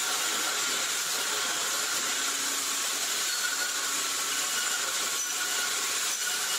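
Steady, even mechanical noise with a hiss, typical of heavy logging machinery running.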